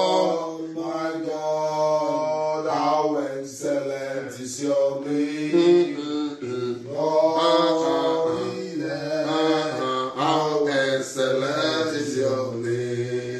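A man's voice singing a slow worship chant, holding long notes and pausing briefly between phrases.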